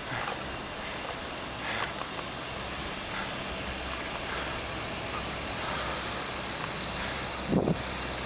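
Wind and road noise on a helmet-mounted camera while cycling through city traffic, with a low vehicle engine hum in the middle and a faint high squeal. A short loud thump comes near the end.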